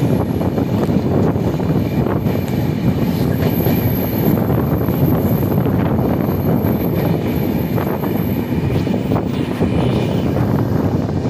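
Steady running noise of a passenger train at speed, heard from inside an LHB coach: wheels on rail mixed with a constant rush of air past the open coach.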